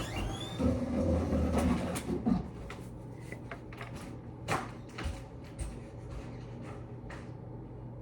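A cupboard opening with a sliding, rumbling sound lasting about two seconds near the start. A few scattered clicks and knocks follow, then steady room tone.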